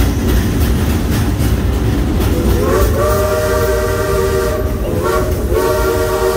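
Steam locomotive's chime whistle blowing a long chord that starts a little over two seconds in, rising slightly as it opens, then a short toot, then another long blast near the end. Under it, the steady rumble and rattle of the moving train cars.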